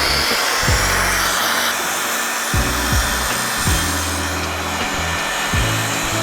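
An electric power tool working wood, a loud steady hissing noise that starts abruptly. Background music with a bass beat plays underneath.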